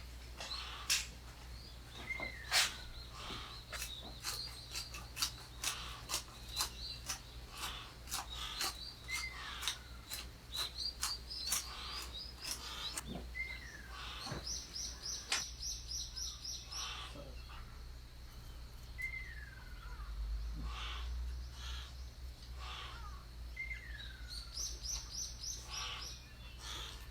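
Wild birds calling: a short falling whistle repeated every few seconds, with runs of quick high chirps. Sharp clicks come in a rapid run through the first half, over a low steady hum.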